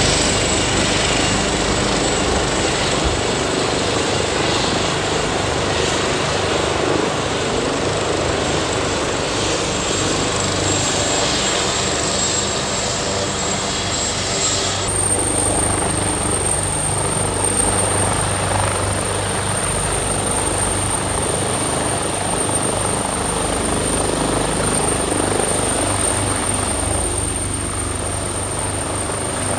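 Helicopter running steadily on the ground, with a thin high whine over the noise of engine and rotor.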